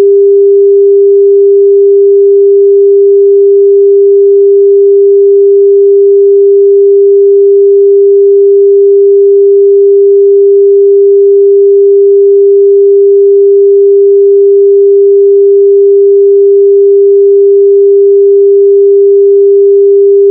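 Loud, unbroken electronic sine-wave tone held at one steady mid pitch, a locator tone played through lost AirPods or Bluetooth earbuds so they can be heard and found.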